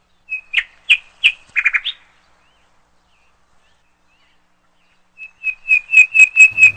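A small bird chirping: a few quick chirps, a pause, then a fast run of sharp repeated chirps near the end.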